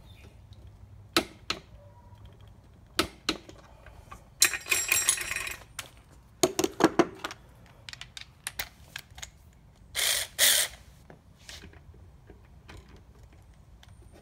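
Metal tool clicks and knocks as a nut is worked with a torque wrench, including a run of rapid ratchet-pawl clicking about four seconds in. About ten seconds in come two short bursts from the 12V cordless ratchet straining against the nut, which it fails to loosen at 45 foot-pounds.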